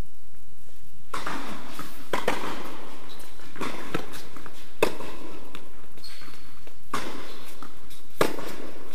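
Tennis ball being struck back and forth with rackets and bouncing on an indoor hard court during a rally. Each hit is a sharp knock, ringing briefly in the hall.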